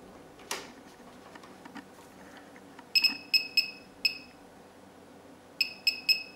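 Short electronic key beeps from a digital function generator as its buttons are pressed to change the output setting. There are four quick beeps about three seconds in and three more near the end, all at the same high pitch.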